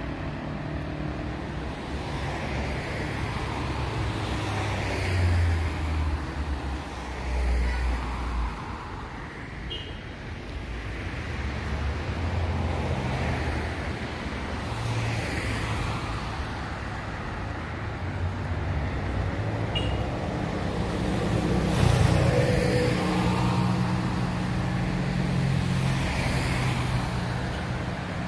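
Road traffic: a steady rumble of cars, with several vehicles driving past, each one swelling louder and fading.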